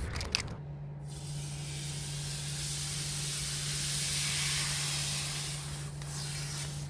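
Aerosol can of Montana acrylic varnish spraying in one long hiss. It starts about a second in, swells in the middle and fades shortly before the end.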